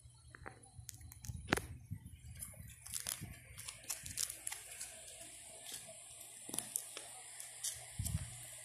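Clear plastic coin-album sleeves crinkling and crackling with irregular clicks as fingers press on the pockets and turn the page.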